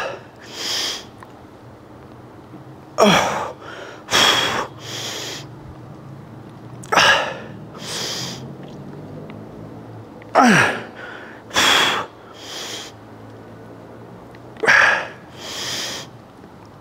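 A man's forceful effort grunts and breaths out, five times, roughly every three to four seconds. Each is a sharp grunt falling in pitch, followed by one or two hissing exhales: a lifter straining through the reps of a heavy set.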